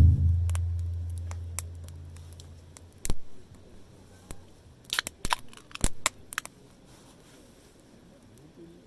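A campfire snapping and crackling, with a cluster of sharp snaps about five seconds in. Before that, at the very start, a low resonant thump hums and fades over about three seconds.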